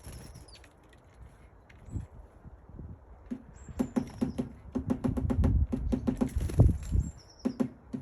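Great spotted woodpecker pecking at wood: a run of sharp, irregular taps at several per second, starting about three and a half seconds in. A few brief, high, thin bird calls sound over it.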